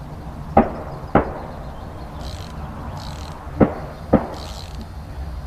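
Four sharp knocks in two pairs, each pair about half a second apart, over a steady low rumble.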